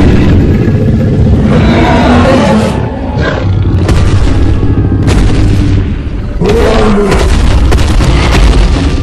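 Dinosaur movie sound effects: heavy booming footfalls and deep rumbling growls of a Tyrannosaurus rex and a Giganotosaurus, over dramatic film music.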